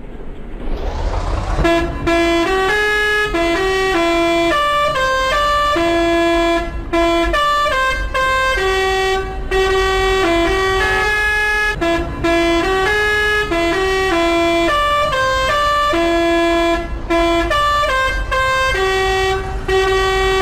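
Telolet basuri multi-tone horn playing a melody, loud held and stepped notes in short phrases with brief gaps between them. A rising hiss comes before the tune starts, about a second and a half in.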